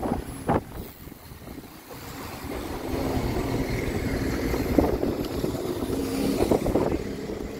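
Double-decker buses and road traffic passing close by, the engine hum of a passing bus building from about two seconds in and easing off near the end, with a few short sharp knocks.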